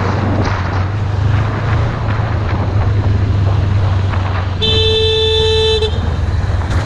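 Honda CB500F's parallel-twin engine running steadily under riding, with road and wind noise. A vehicle horn sounds one steady note for just over a second, about two-thirds of the way in.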